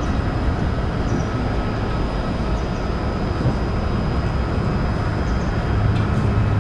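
Boeing 777-200 airliner's jet engines at climb power just after takeoff: a steady low rumble that grows a little louder near the end.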